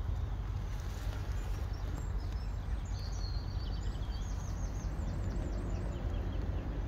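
Steady low rumble of wind buffeting the microphone, with a small bird singing quick runs of high, repeated chirping notes, most densely around the middle.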